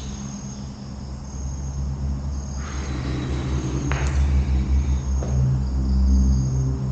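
Insects chirping in repeated short, high-pitched bursts over a low, steady engine hum that slowly grows louder, with a couple of faint knocks.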